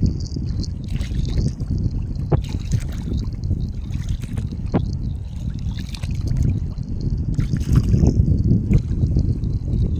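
Seawater sloshing and splashing over a steady low rumble.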